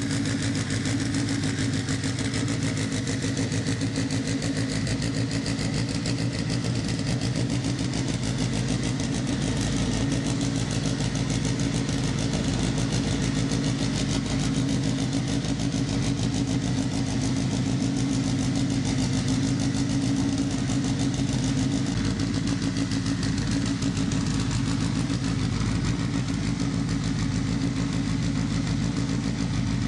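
Turbocharged Subaru Impreza STI flat-four engine running at a steady, unchanging speed, without revving.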